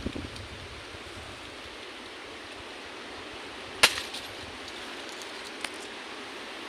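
Steady outdoor background hiss, with one sharp click about four seconds in and a fainter click later.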